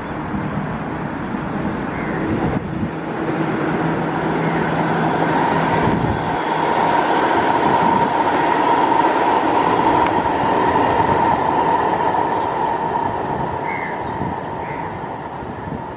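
SMRT North-South Line electric train running past on the elevated track, building to a peak in the middle and then fading, with a steady high whine at its loudest.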